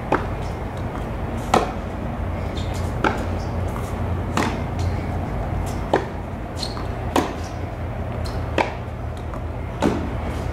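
Tennis balls struck by racquets in a baseline rally on a hard court: eight sharp hits, about one every second and a half, over a steady low rumble.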